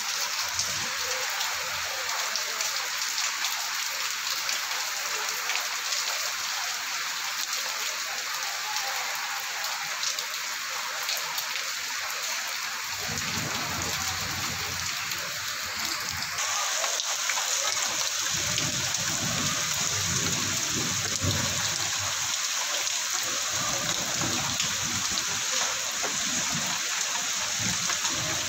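Heavy rain pouring down and splashing on pavement, a steady dense hiss. About halfway through, a low rumble joins it and comes and goes to the end.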